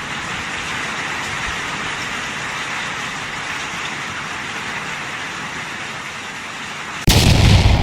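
Hail coming down hard in a steady hiss. Near the end a sudden loud boom cuts in.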